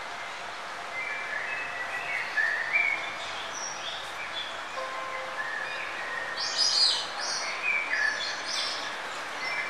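Birds chirping: short whistled calls that slide in pitch, with a louder cluster of high, quickly falling notes about two-thirds of the way through, over a steady background hiss.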